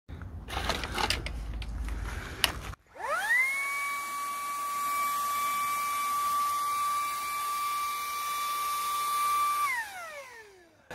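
Clattering with a few sharp clicks, then a small electric motor that spins up quickly, runs at a steady high pitch for about six seconds, and winds down near the end.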